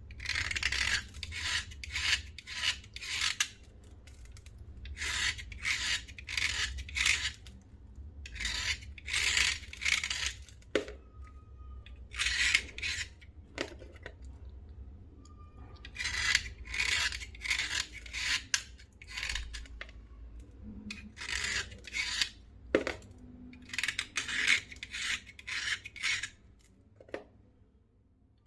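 Slate pencils being scraped by hand in quick rasping strokes, in runs of four to six strokes separated by short pauses, with a few faint clicks between runs.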